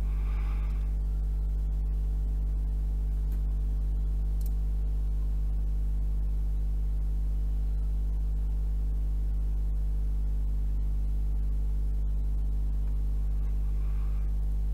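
Steady low electrical hum with a stack of even overtones, unchanging throughout, with a few faint clicks.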